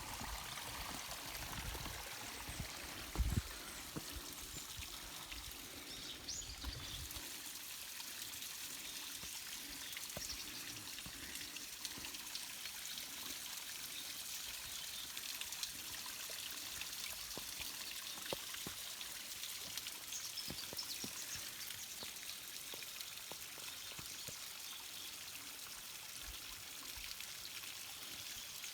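Mountain stream water running and trickling over rocks, a steady splashing hiss. A short low bump about three seconds in, with some low rumble during the first several seconds.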